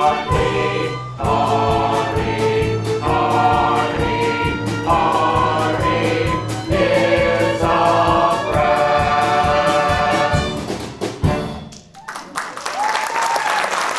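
Stage ensemble singing a musical number in chorus with a pit band and a steady beat, ending on a final accented hit about eleven seconds in. Audience applause starts right after.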